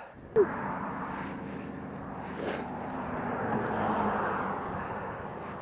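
A motor vehicle passing by at a distance: a steady engine-and-road rush that swells to a peak about four seconds in and then eases.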